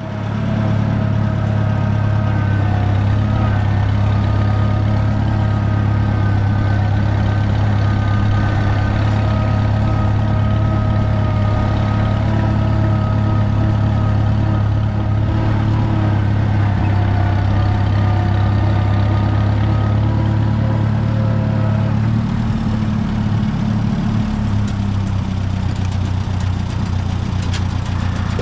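Oliver farm tractor engine running steadily while the tractor is driven, with a faint whine above the engine note; the engine note changes about two-thirds of the way through.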